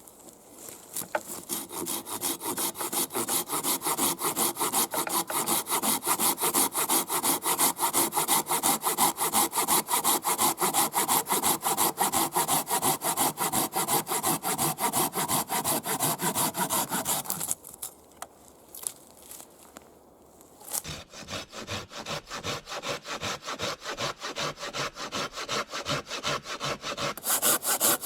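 Hand saw cutting wood with quick, even back-and-forth strokes, about three a second. The sawing stops for a few seconds about two-thirds of the way through, then starts again.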